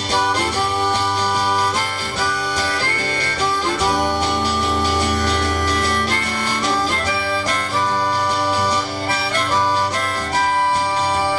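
Harmonica solo playing the melody in long held and bending notes over a strummed guitar and bass backing, a live band's instrumental break.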